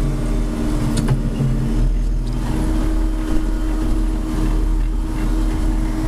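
John Deere 4630 tractor's six-cylinder diesel engine running steadily, heard from inside the cab as an even drone.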